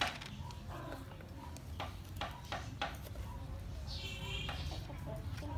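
A few light clicks and taps from handling a small seasoning jar over a plastic bowl, bunched about two to three seconds in, with a short bird call about four seconds in, over a steady low hum.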